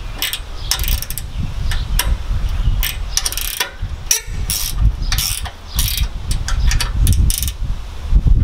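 Ratcheting wrench clicking in short runs as it loosens the nuts on an aluminium trimmer-rack bracket, over a steady low rumble.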